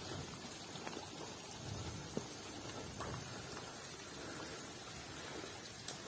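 Soft, steady patter of water drops with scattered sharp drips.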